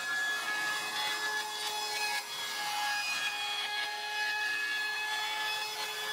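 Router spinning a large profile bit in a router table while a wooden board is fed through it, cutting a tambour joint profile: a steady high motor whine over the continuous hiss of the bit cutting wood.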